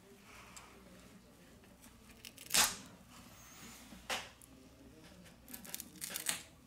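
The adhesive under a Xiaomi Mi8 Lite's battery tearing and crackling as the battery is pried up out of the frame with a pry tool. There are short rips about two and a half and about four seconds in, the first the loudest, then a run of crackles near the end.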